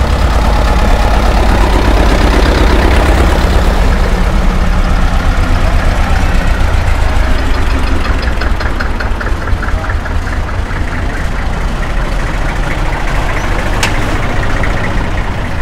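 Old tractor engines running as they drive past, a loud low chugging that is strongest in the first few seconds and eases slightly afterwards. There is a single sharp click near the end.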